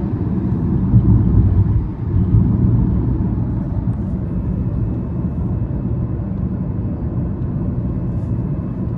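Steady low rumble of a car's road and engine noise, heard from inside the cabin while riding.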